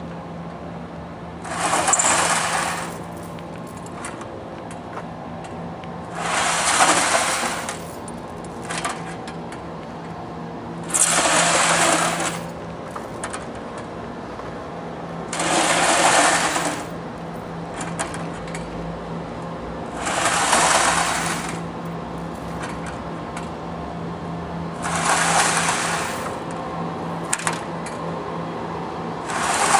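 Plate-loaded metal training sled scraping across concrete as it is hauled in by a rope, in about a second of scraping roughly every four and a half seconds, over a steady low hum.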